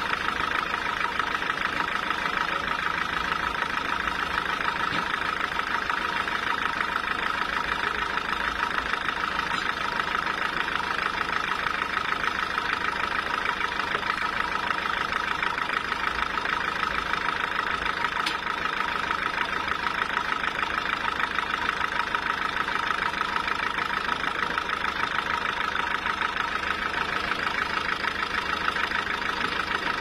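Home-made band sawmill running steadily without load, its blade spinning free with an even whine.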